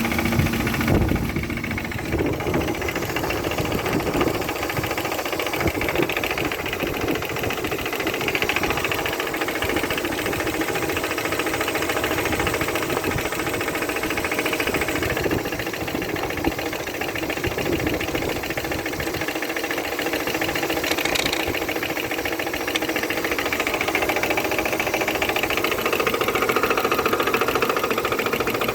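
Opel Vectra B's X18XE 1.8-litre four-cylinder petrol engine running steadily with a rapid knocking from inside the engine, whose cause the owner cannot name.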